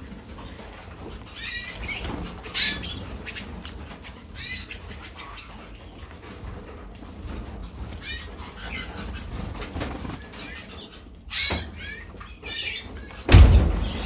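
Harz Roller canaries crowding a food dish, giving short chirps every second or two and fluttering. A dull thump sounds near the end.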